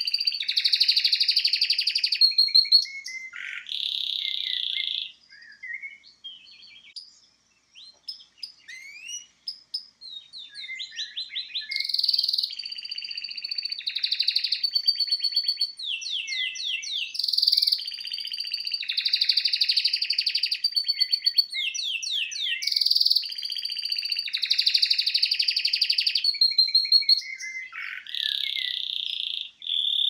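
Domestic canary singing: long phrases of fast repeated notes and rolling trills, high-pitched. About five seconds in the song drops to a few scattered chirps, then builds back into full song around ten seconds in and runs on.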